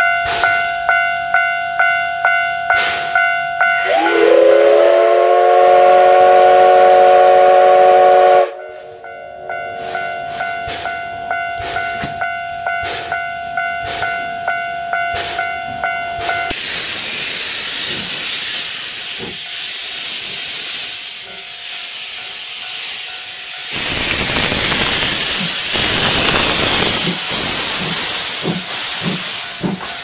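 Level-crossing warning bell clanging about twice a second. About four seconds in, the C11 steam locomotive's whistle sounds one long chord, its pitch rising as it opens, held about four seconds. From about halfway, loud steam hissing, with exhaust chuffs as the locomotive starts to pull away.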